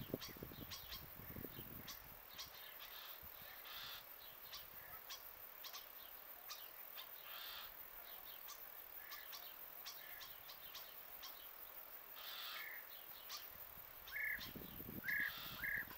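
Faint outdoor ambience with birds chirping: scattered short, high chirps throughout and a few louder short calls in the second half, bunched together near the end. A low rumble comes in at the start and again near the end.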